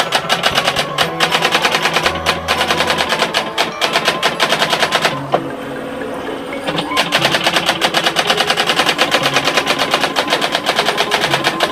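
Brother GX-6750/8250 electronic daisywheel typewriter printing, its daisywheel hammer clattering in a rapid run of strikes, roughly ten a second, with a pause of about a second and a half near the middle. It is a test print after the two metal plates that had pushed into the daisywheel and garbled the letters were bent back.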